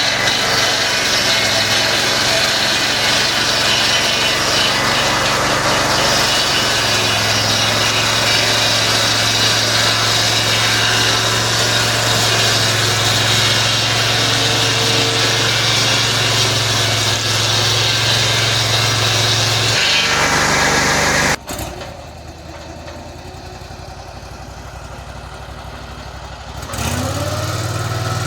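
Engine of a portable band sawmill running steadily with the whine and rush of the blade, the sound changing about 20 seconds in and dropping away sharply a moment later. Near the end the engine comes back with a rising pitch as it speeds up.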